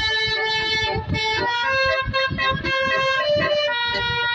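Bus "basuri" telolet air horn playing a tune: a quick run of held musical notes that step up and down in pitch, over a steady low beat.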